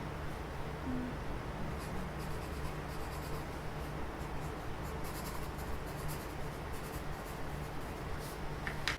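Faint scratching of a pen on paper, in short strokes, over a steady low hum.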